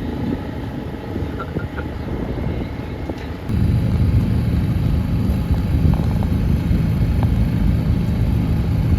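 Boat under way: the steady low rumble of its motor mixed with wind and water noise, suddenly louder about three and a half seconds in.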